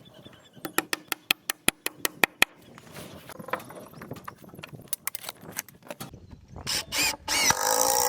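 A quick run of about ten sharp knocks on wood. Near the end comes a louder stretch of scraping and creaking as the timber roof truss is worked into line.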